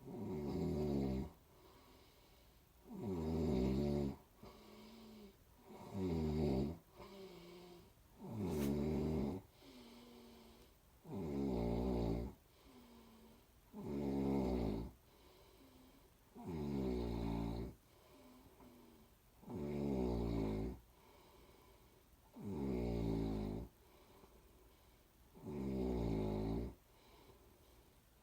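A person snoring in a slow, steady rhythm, about ten loud rumbling snores each a second or so long, with a softer breath between each.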